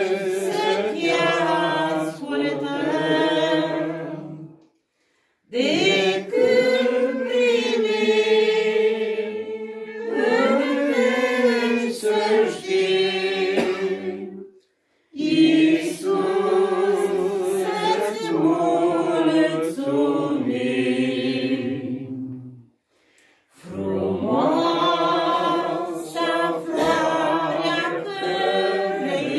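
A small group of men and women singing a Romanian hymn a cappella, in four long phrases separated by three short breaks.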